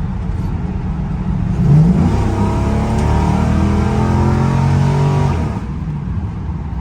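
LS1 V8 engine of a restomod 1971 Pontiac Firebird accelerating hard on a kickdown. About two seconds in the revs jump up as the 4L60 automatic shifts down, then the engine pulls strongly for about three and a half seconds before easing off.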